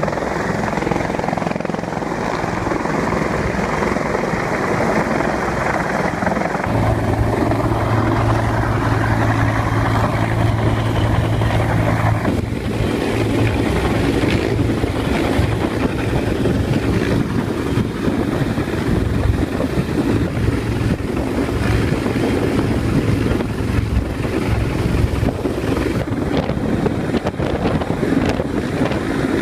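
Rescue helicopter hovering close overhead: steady, loud rotor and engine noise, with a strong low hum from about seven to twelve seconds in, after which the sound turns rougher and choppier.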